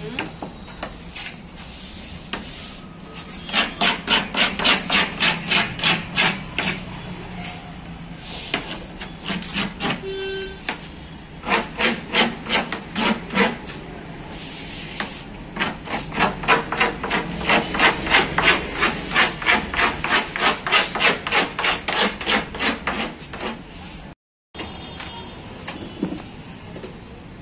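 Hard back-and-forth rubbing or scraping on a wooden surface, about three to four strokes a second, in several runs with short pauses between.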